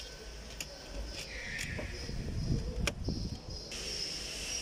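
Hands handling a car dashboard's plastic centre panel and wiring harness: scattered plastic clicks and knocks, a short rustle, and one sharp click about three seconds in.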